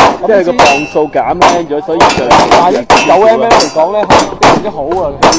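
Rapid gunshots from several firearms on a shooting range, about two to three shots a second, with people talking between the shots.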